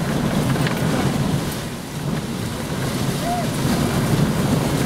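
Hurricane-force gusts of Hurricane Irene buffeting the microphone: a loud, steady low rumble of wind that eases briefly about two seconds in and builds again.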